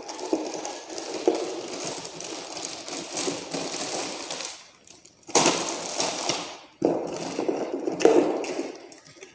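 Packaging of a new kids' tent being torn open and handled: crackling, rustling wrapping in three stretches separated by short pauses.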